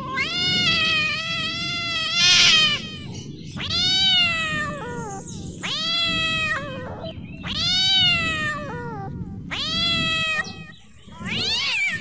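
Angry domestic cat yowling: about six long, drawn-out meows in a row, each dropping in pitch at the end.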